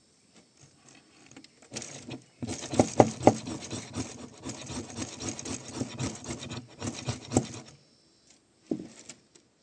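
Dry twigs and tinder crackling and rustling in a dense run of quick snaps for about six seconds, with a short burst near the end.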